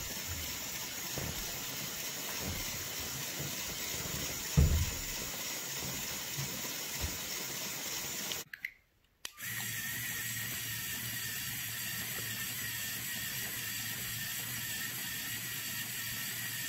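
LEGO EV3 medium motor, then a LEGO Spike Prime medium motor, driving a gear train that spins a treadmill model's rollers: a steady mechanical whirr. In the first run a single thump stands out, and a brief dropout about halfway through splits the two runs.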